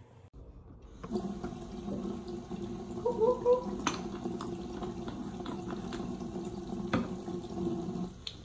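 Bathroom sink faucet running in a steady stream, the water splashing over a puppy held under it and into the basin. It starts about a second in.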